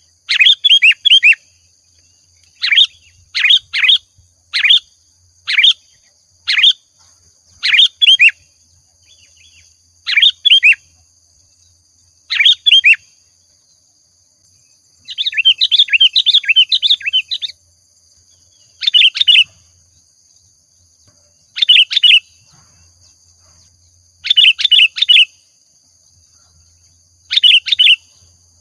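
Sooty-headed bulbul (kutilang) singing energetically in short phrases of a few quick whistled notes, repeated every second or two, with a longer chattering run about halfway through.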